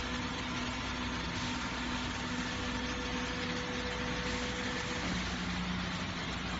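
Hydraulic home lift's electric pump unit running as the cabin moves up its mast, a steady machine hum that shifts to a lower tone about five seconds in.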